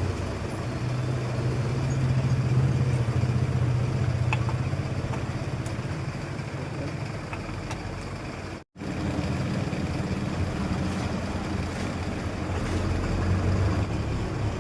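Steady low mechanical hum, cut off for an instant about nine seconds in.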